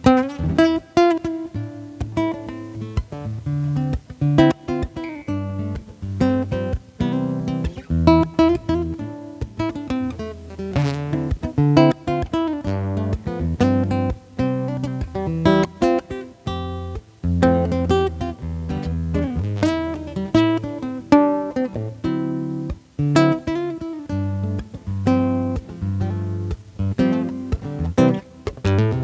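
Vintage Kodaira AST50 acoustic guitar played through a Fishman Sonitone GT2 pickup: a continuous run of plucked chords and single notes.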